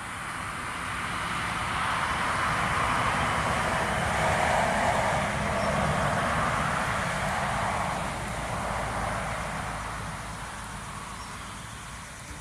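Steady outdoor rushing noise that swells over the first few seconds and slowly fades toward the end.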